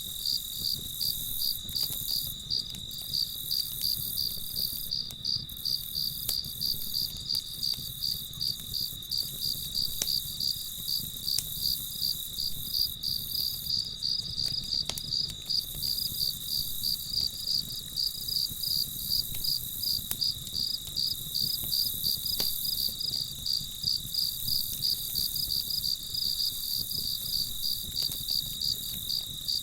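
Crickets chirping in a steady night chorus: fast, regular pulsed chirps over a continuous high trill, with a few faint clicks.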